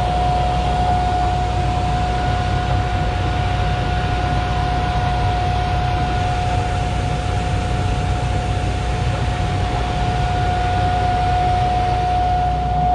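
John Deere 8345R tractor running steadily under load while sowing, heard from inside the cab: a low engine rumble with a constant high whine over it.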